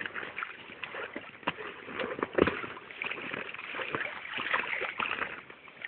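Water sloshing and splashing with irregular knocks as a dog works at a water-filled toy to get the ball out, with the loudest splash or knock about two and a half seconds in.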